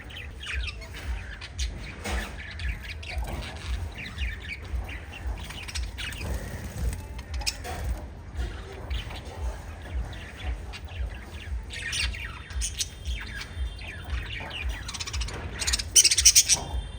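A group of lovebirds chirping and squawking, with many short high calls overlapping. A loud burst of shrill calls comes near the end.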